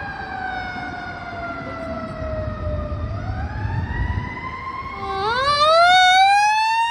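Fire engine's Federal Q mechanical siren winding down slowly in pitch, then spinning back up about three seconds in. A second wail joins about five seconds in, climbing quickly from low to a louder, higher scream. Engine and road noise run underneath.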